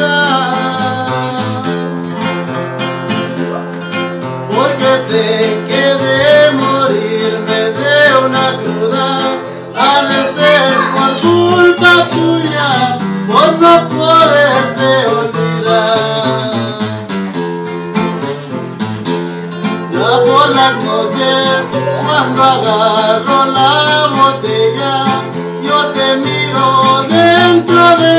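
Nylon-string classical guitar strummed and plucked in a steady rhythm, accompanying a man's singing voice.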